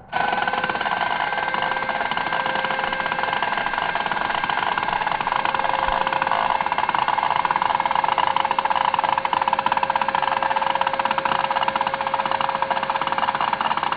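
Hyper Tough 20V 4.5-inch cordless angle grinder fitted with a 60-grit flap disc, switched on just as the sound starts and running at a steady speed. It gives a steady whine over a rough grating noise as it grinds old paint off a stair railing.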